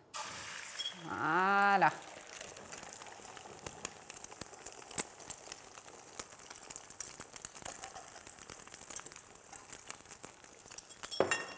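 Beaten eggs poured into hot oil in a frying pan: a sudden hiss as they hit the oil, then a steady sizzle with many small pops and crackles.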